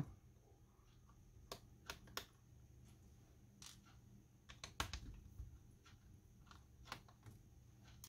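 Faint, scattered clicks and taps of a screwdriver taking small screws out of a laptop's metal hinge bracket, over a faint steady hum.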